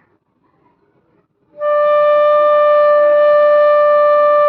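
Bansuri bamboo flute sounding one long, steady note with a clear tone, starting about a second and a half in. It is played with the finger holes fully covered, which gives a clean, sweet tone.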